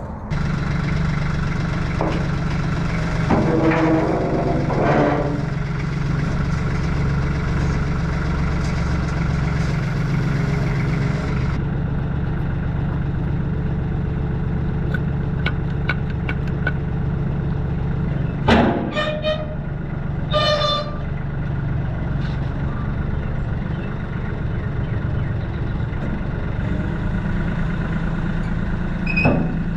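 Loader engine running steadily while its forks lift and flip a steel brush cutter; metal clanks and rings, with two loud clangs a little past halfway as the cutter tips over.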